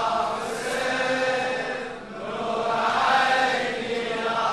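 Backing chorus of voices chanting a latmiya in long held notes, in two phrases with a brief dip about two seconds in.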